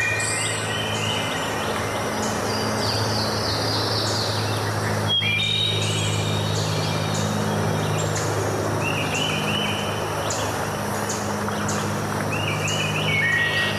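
Steady rush of flowing water with several birds singing over it: high chirps and short repeated trills. A low steady hum runs underneath, and the water sound drops out briefly about five seconds in.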